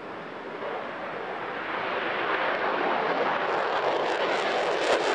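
Single-engine F-16 fighter jet taking off in afterburner, a loud jet noise that grows steadily louder as it climbs away past, with a crackle coming in over the last couple of seconds.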